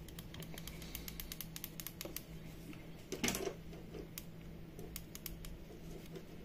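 Light, irregular clicks and rustles from gloved hands handling an opened smart plug with test clips attached, with one louder brief rustle about three seconds in, over a faint steady hum.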